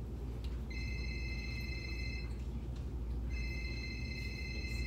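Electronic telephone ring, a steady high two-tone ring sounding twice: about a second and a half on, a second off, then on again. A steady low room hum runs underneath.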